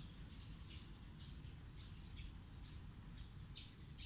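Faint small-bird chirping: a series of short, high chirps, two or three a second, over a low background rumble.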